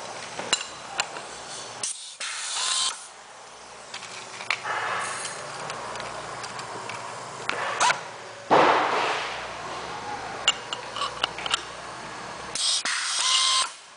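A 4080 spin-pull pneumatic-hydraulic rivet nut tool cycling several times as 1/4-20 stainless steel rivnuts are set in an aluminum plate: short bursts of air hiss with sharp clicks between them. The loudest burst comes a little past the middle.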